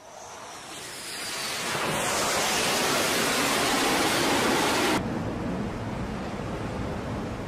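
Jet engine noise on an aircraft carrier's flight deck: a loud, even rush that swells over about two seconds, holds, and cuts off abruptly about five seconds in. After it comes a quieter steady rush of wind and sea.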